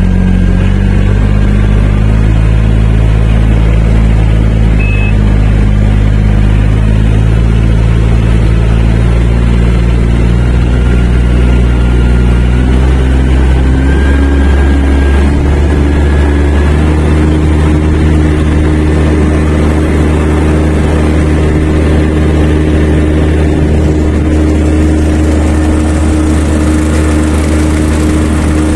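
Yanmar rice transplanter's engine running steadily while the machine drives itself and plants in a flooded paddy, its note shifting and rising slightly about halfway through. A brief high beep sounds about five seconds in.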